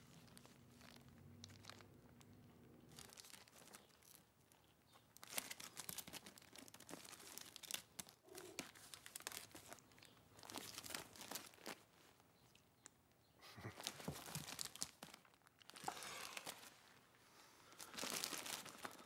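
Hands flicking through a box of 7-inch vinyl singles, the paper and plastic sleeves rustling and crinkling in several spells starting about five seconds in.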